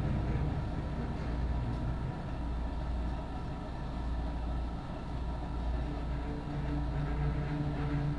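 Background music of low, held notes, thinning in the middle and fuller again after about six seconds.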